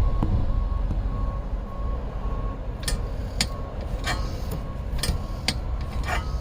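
Sharp metallic clicks and knocks, spaced about half a second to a second apart in the second half, from the seat's drive gearbox and rod being turned by hand. They sit over a steady low hum and a faint electronic beep repeating at a regular pace.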